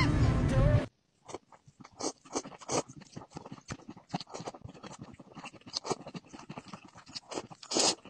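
Chopsticks clicking and scraping in a bowl of noodles: irregular small taps, with a longer, louder noise near the end. In the first second, music from the previous clip, which cuts off abruptly.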